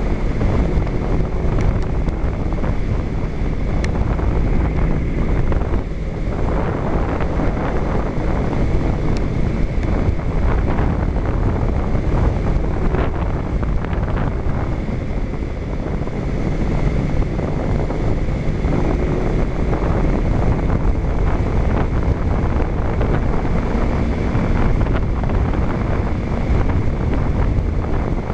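Wind buffeting a helmet-mounted camera's microphone on a moving motorcycle, with the Kawasaki Ninja 250's parallel-twin engine running steadily beneath it.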